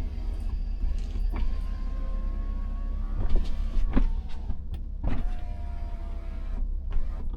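Inside a car cabin: a steady low rumble with a faint electric motor whine that slides slowly in pitch, and a few sharp knocks.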